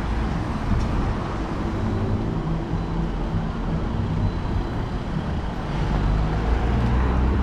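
Road traffic passing close by: steady tyre and engine noise from cars and a van, with engine hums coming and going, a little louder near the end.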